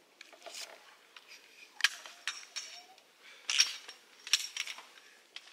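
Irregular light clinks and knocks of tableware and utensils, a few sharper strikes ringing briefly, the loudest about two seconds in and just past three and a half seconds.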